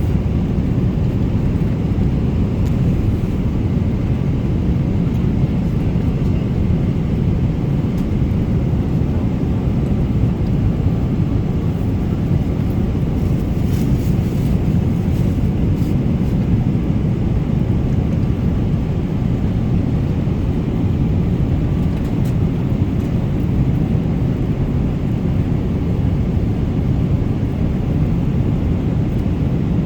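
Steady low rumble of a moving vehicle's engine and travel noise, unchanging throughout.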